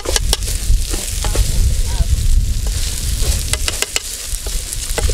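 Rice with diced carrots and green beans frying in a metal pan over a wood fire: a steady sizzle, with sharp clinks and scrapes as a metal spoon and wooden spatula stir it, in clusters near the start and again around three and a half seconds in.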